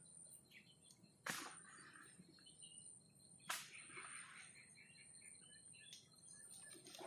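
Faint birds chirping over a thin, steady high insect tone, with two sharp clicks about two seconds apart.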